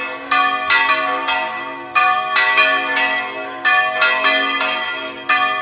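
Church tower bells ringing, struck in quick succession several times a second, in repeating groups about every one and a half to two seconds, their tones overlapping and ringing on.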